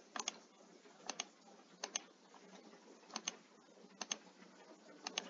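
Computer mouse button clicking, roughly once a second, several of the clicks heard as quick pairs, over faint background hiss.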